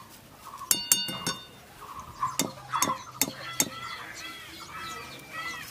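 Wire mesh skimmer knocking against the rim of an iron wok as freshly fried potato strands are shaken and drained over the oil: a series of sharp metallic clinks that ring briefly, a few about a second in and four more evenly spaced after. Small birds chirp repeatedly near the end.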